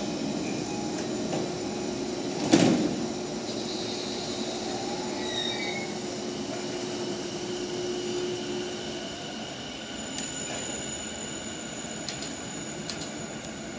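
Keiyo Line electric commuter train's sliding doors shutting with one loud thud about two and a half seconds in, then the train pulling out: a steady low running hum with faint rising electric motor whines as it draws away.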